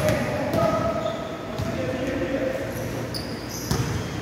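Basketballs bouncing on an indoor court floor, irregular thuds from several balls echoing in a large hall, with a few short high squeaks about three seconds in and faint voices in the background.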